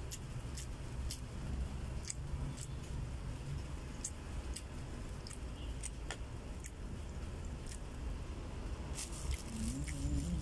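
Eating at close range: a utensil clicking lightly and irregularly against a plastic food container, with chewing, over a steady low background rumble.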